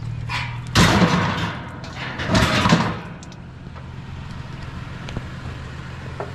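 A vehicle engine idling with a steady low hum. Two short, loud, noisy clatters come over it, one just under a second in and one about two and a half seconds in.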